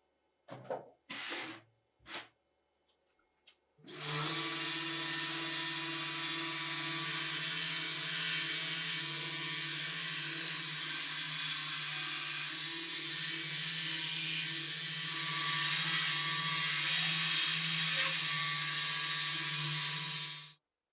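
A small electric power tool runs at a steady speed for about seventeen seconds, starting about four seconds in and cutting off just before the end. A few short knocks and scrapes come before it.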